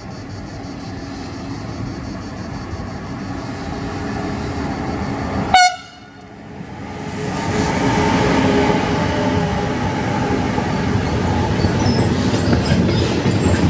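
Freight train hauled by two Siemens Class 189 electric locomotives running through a station: a steady rumble, then a short horn blast about five and a half seconds in that cuts off abruptly. After a sudden drop the rumble and wheel clatter of the locomotives and wagons passing close by build up and stay loud.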